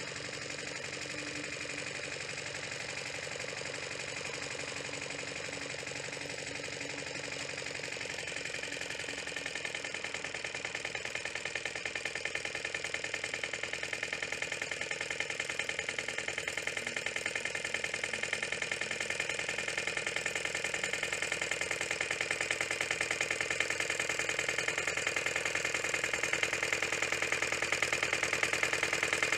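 Two-wheel walking tractor's engine running steadily as it ploughs a furrow, growing gradually louder as it comes closer.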